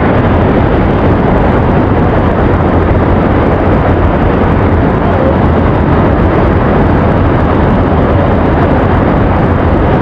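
Small waterfalls pouring into a rocky plunge pool close by: a loud, steady rush of water, heaviest in the deep low end.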